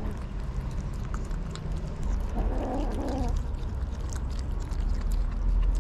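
Kittens eating cooked fish from a metal tray, with many small wet chewing and tearing clicks. About two and a half seconds in, a kitten gives a short, rough cry over the food.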